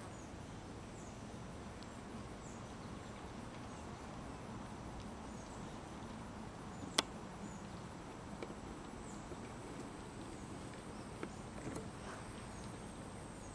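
Outdoor ambience picked up by the camera's built-in microphone: a steady hiss with a faint high steady tone and a faint short high chirp about once a second. A sharp click comes about seven seconds in, and a few softer handling clicks follow near the end as the lens is refocused.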